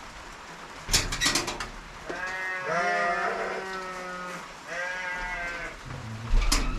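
Livestock bleating: two long, wavering calls, the first starting about two seconds in and lasting about two seconds, the second shorter. Sharp knocks sound about a second in and again near the end.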